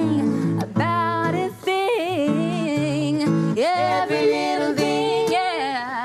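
Live acoustic guitar accompanying a girl singing a reggae melody.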